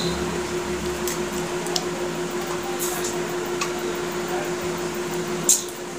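Eating sounds: fingers picking through fish curry and rice on steel plates and chewing, with scattered small clicks and a sharper click about five and a half seconds in, over a steady low hum.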